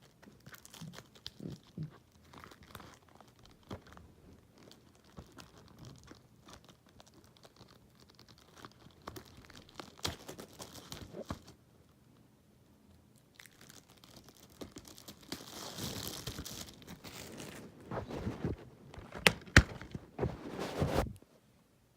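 Plastic shrink-wrap being peeled and torn off a DVD case, crinkling and crackling, louder and busier over the last several seconds before it stops suddenly.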